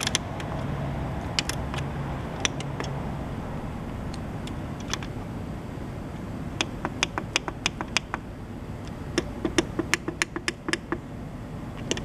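Buttons on a GE refrigerator's dispenser control panel being pressed, each press a sharp click: a few scattered clicks at first, then two quick runs of repeated presses, one about halfway through and one near the end, as the temperature setting is stepped. Steady background noise runs underneath.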